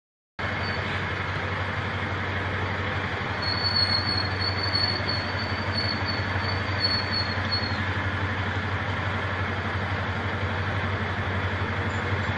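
Steady rumble of the slow-moving relay convoy's engines (bus, car and police motorcycle) with road noise, cutting in abruptly just after the start; a thin high tone runs over it for about four seconds in the middle.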